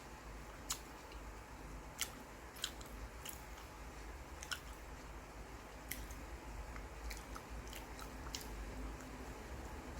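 A person eating close to the microphone: chewing, with sharp mouth clicks and smacks every second or so over a low steady hum.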